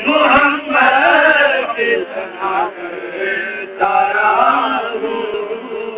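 Man's voice chanting a naat in long, drawn-out melodic phrases, two loud sung lines with a quieter stretch between, over a steady low drone.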